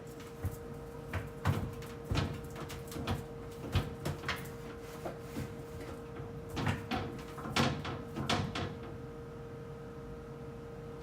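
Irregular knocks and clatters of containers, shelves and doors being handled while a refrigerator is cleaned out, stopping about eight and a half seconds in. A steady hum runs underneath.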